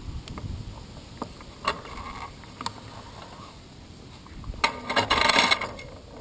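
Road bicycle's mechanical ticks and rattles, picked up through the handlebar camera mount during a slow turn, with a louder mechanical whirr for about a second near the end.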